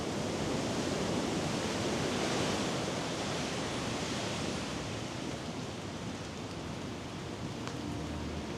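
Ocean surf rushing and washing in: a steady wash of noise that swells a little a few seconds in.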